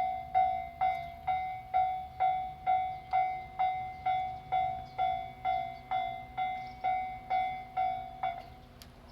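Japanese level-crossing warning bell ringing, about two strikes a second, each a clear decaying tone. It cuts off suddenly near the end. The crossing is closed with no train passing through.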